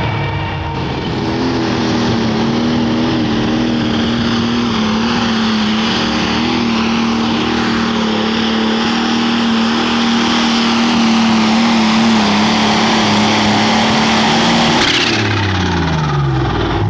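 Ford super stock pulling tractor's turbocharged diesel at full throttle hauling the weight-transfer sled: a loud, steady high engine note held for about fourteen seconds. Near the end the pitch falls sharply as the engine winds down.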